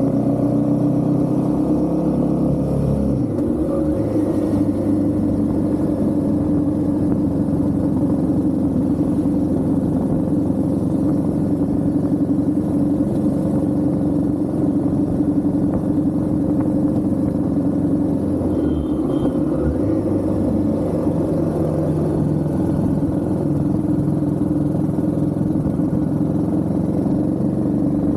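Royal Enfield Himalayan 450's single-cylinder engine running steadily while riding. Its note shifts a few seconds in and again a little past the middle.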